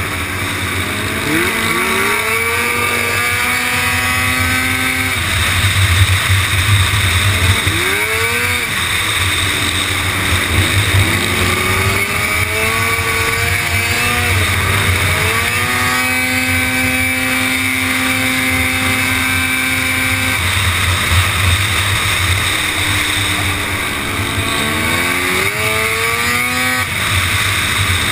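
Racing quad bike's engine heard onboard, revving up in pitch through the gears several times, holding a steady note for a few seconds in the middle, and dropping away as it slows for the bends.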